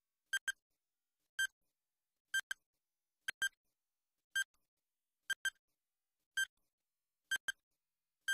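Countdown timer sound effect: short, identical electronic beeps about once a second, some coming as quick double beeps, ticking off the seconds left to answer.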